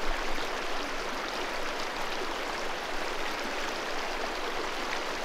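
Shallow river flowing over rocks and small rapids: a steady, even rush of water.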